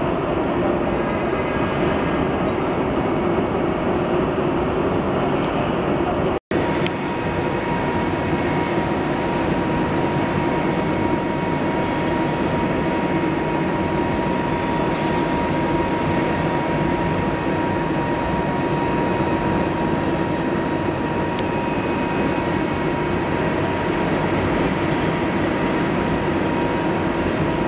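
Accut VTL-10000CNC double-column vertical lathe heavy-cutting a large steel workpiece: a loud, steady machine noise of the rotating table and the tool in the cut. A brief dropout about six seconds in, after which a thin steady high whine runs alongside.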